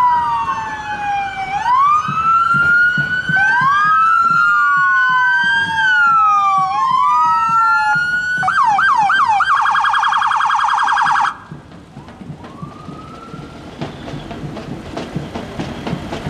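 Electronic sirens on police and sheriff patrol SUVs: two wails rise and fall over each other, switch to a fast yelp and then a rapid warble, and cut off suddenly about eleven seconds in. A brief rising whoop follows, then a growing rumble of engine and street noise.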